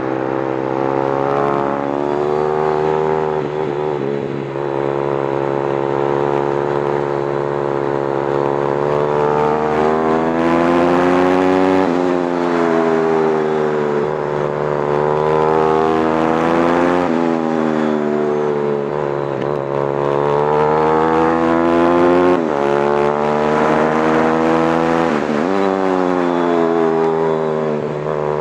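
A go-kart engine heard onboard at racing speed. Its pitch climbs steadily on the straights and drops sharply into the corners several times.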